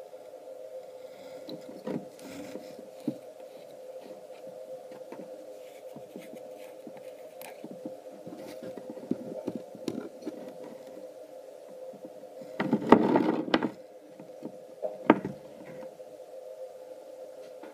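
Handling noise from a Mark II wort pump being picked up, turned and set down by hand on a wooden board: scattered light knocks, clicks and scrapes, with a louder rustling scrape about two-thirds through and a sharp knock soon after, over a steady background hum.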